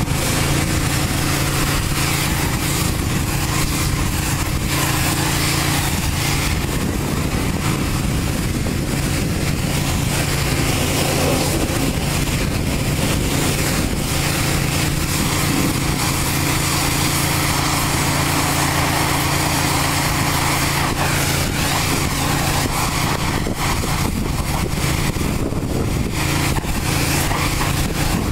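Pressure washer spraying a truck's wheels and undercarriage: a steady hiss of high-pressure water that swells and fades as the wand moves, over the even hum of the washer's motor and pump.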